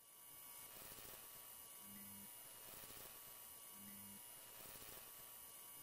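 Faint electrical hum and hiss of a neon-sign sound effect for a neon logo, with two short low buzzes about two and four seconds in.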